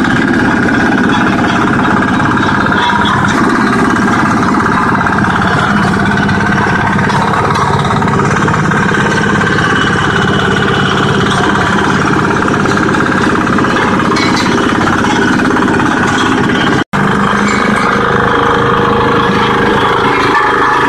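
Mini road roller's engine running steadily under a loud, even mechanical clatter, broken by a momentary dropout about seventeen seconds in.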